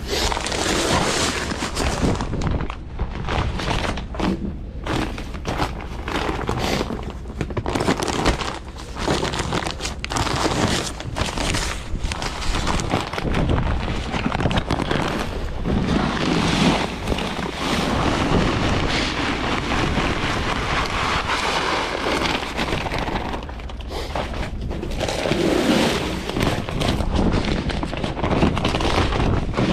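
Strong wind buffeting the microphone in gusts, a loud uneven rushing with frequent thumps.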